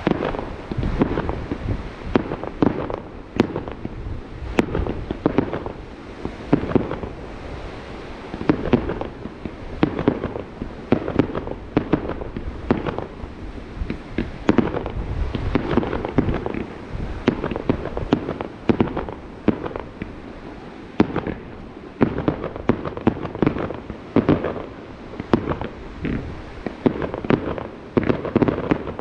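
Fireworks display: aerial shells bursting in a dense, continuous barrage, many sharp bangs in quick succession, each with a short echoing tail.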